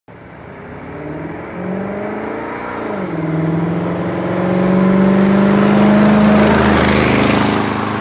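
1957 Ford Thunderbird E-Code's 312 cubic-inch V8 with dual four-barrel carburetors, accelerating along the road. The engine note climbs, drops about three seconds in as it shifts up, then pulls again and grows louder as the car approaches, with a rush of road and wind noise swelling near the end.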